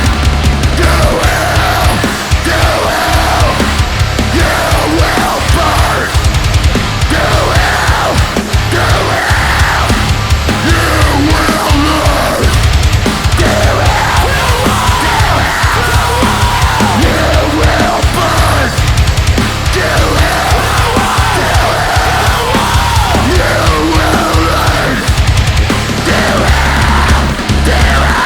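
Heavy metal band playing live: loud distorted guitars, bass and drums in an instrumental section, with fast shifting guitar lines over a dense low end.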